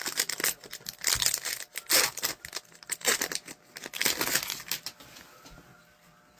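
Plastic wrapper of a hockey card pack being torn open and crumpled, a run of irregular crinkling and rustling that dies away about five seconds in.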